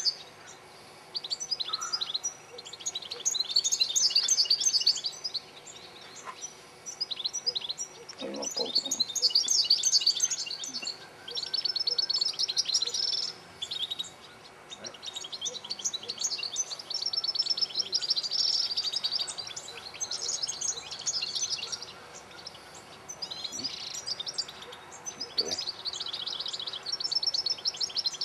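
European goldfinches singing: phrases of fast, high twittering notes, each a second or two long, following one another with short pauses.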